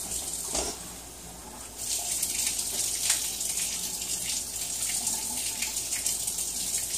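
Kitchen sink faucet running hot water in a steady hiss. The flow drops away for about a second early on, then comes back full.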